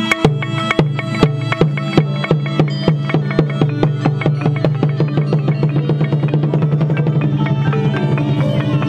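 Khmer pinpeat ensemble playing: drum strokes quicken from about two or three a second to about five, over a held low tone and melodic pitched-percussion and wind lines.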